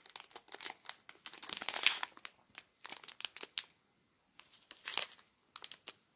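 Small plastic zip bags of diamond-painting drills crinkling as they are handled: irregular crackles and clicks, loudest about two seconds in and again about five seconds in.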